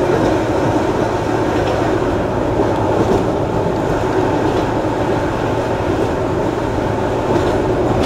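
Keihan Ishiyama Sakamoto Line high-floor tram running at speed, heard from inside the cab: a steady rumble of wheels on the rails, with a few faint clicks from rail joints.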